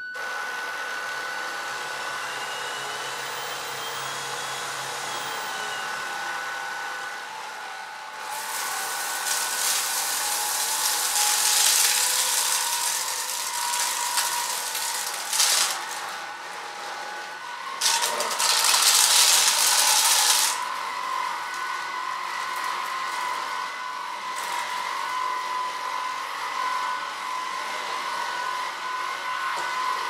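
Cecotec Conga Popstar 4070 cordless stick vacuum running in eco mode, a steady motor whine. About eight seconds in, and again around eighteen seconds, a louder rushing sound swells for several seconds as it draws in coffee, birdseed and chunks of textured soy. It struggles a little with the soy, which clogs the intake briefly at first.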